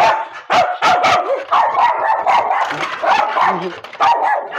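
Several kennel dogs barking behind a gate: quick, overlapping barks, two or three a second, with no let-up.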